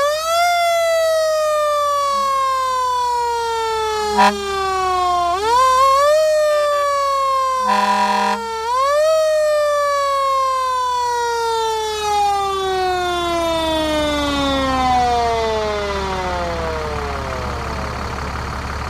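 Federal Q mechanical siren on a fire engine winding up fast and then coasting slowly down in pitch, three times. The last spin-down falls a long way and fades out. A short steady horn blast sounds about eight seconds in.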